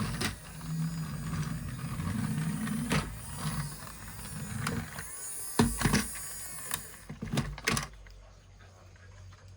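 A small motor whirring steadily for about five seconds, then stopping, followed by several sharp clicks and knocks.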